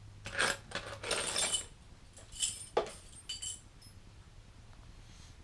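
Small metal mounting hardware (screws, plates) clinking and rattling as it is handled, a quick run of bright ringing clinks over the first few seconds that then stops.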